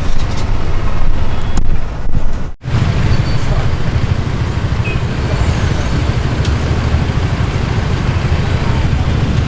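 Road traffic noise heard from a scooter stuck in a traffic jam: a dense, steady low rumble of engines and road noise. There is a sudden brief break about two and a half seconds in.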